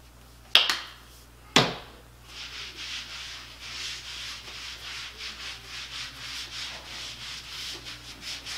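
Two sharp clicks in the first two seconds, then a tanning mitt rubbing back and forth over bare skin of the lower leg in quick, even strokes, a steady scratchy swishing.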